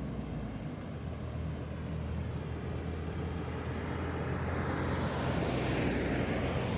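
Road traffic at a roundabout: vehicle engines running and passing, growing a little louder near the end, with a faint high chirp repeating about twice a second over it.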